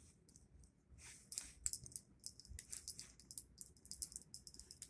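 Faint, rapid light metallic clicking and rattling from handling an H&R 923 .22 LR revolver and its cartridges between shots.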